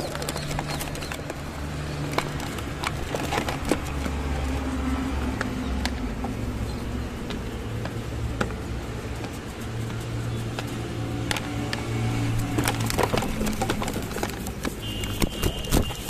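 Feral pigeons scuffling at close range on a plastic feeder tray: wing flaps and sharp clicks and knocks of beaks and feet, over a low, steady drone of city traffic. A steady high tone comes in near the end.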